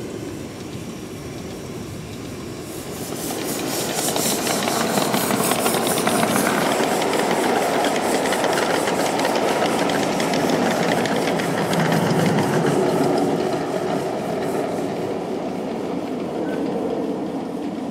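A 1.5-inch scale live steam locomotive getting under way and running past, pulling its train of riding cars. The sound swells about three seconds in and stays loud, with steam and the cars rolling over the track, easing slightly near the end.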